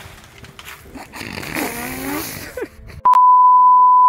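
A breathy, groaning voice, then about three seconds in a loud, steady, high-pitched test-card beep starts and holds: the reference tone played with TV colour bars.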